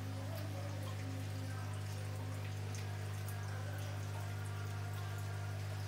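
Aquarium water trickling and dripping from a filter outflow, over a steady low pump hum.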